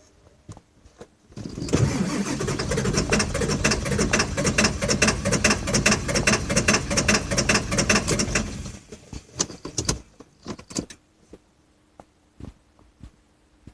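Ford 7.3 Powerstroke V8 turbo-diesel being cranked by its starter for about seven seconds without catching, then the cranking stops, followed by a few clicks. This is a hard start, which the owner puts down to injectors needing replacement.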